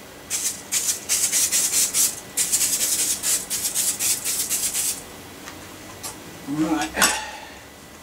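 Aerosol can of furniture polish being shaken and sprayed onto a bike frame: a run of quick, bright, rattling and hissing bursts lasting about five seconds.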